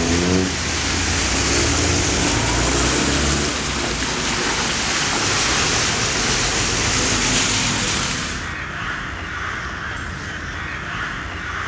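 Steady hiss of traffic on a wet street, tyres on wet asphalt, with the tail of a train horn dying away at the very start. About eight seconds in the hiss cuts off abruptly, leaving a quieter outdoor ambience.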